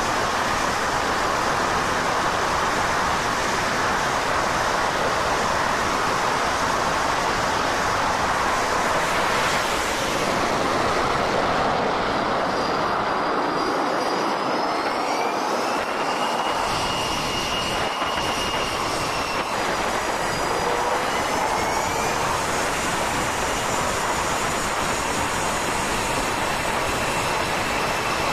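Jet aircraft engines running on a carrier flight deck: a loud, steady roar with a high turbine whine that rises in pitch about halfway through and again later.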